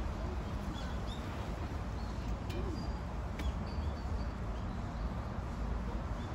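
Outdoor ambience: small birds give short, scattered chirps over a steady low rumble, with two sharp clicks about a second apart near the middle.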